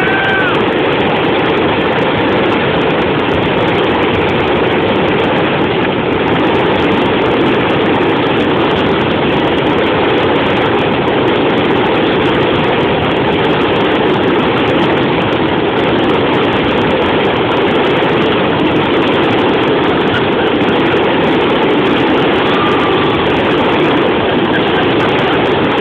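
Fireworks finale: a rapid, unbroken barrage of aerial shell bursts and crackle that merges into a steady roar with no separate bangs. A couple of brief whistles rise out of it, one just after the start and one near the end.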